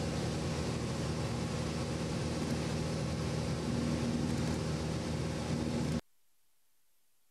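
Steady drone of a light aircraft's engine and propeller heard from inside the cabin, with rushing air noise over a few steady engine tones. It cuts off abruptly about six seconds in, leaving near silence.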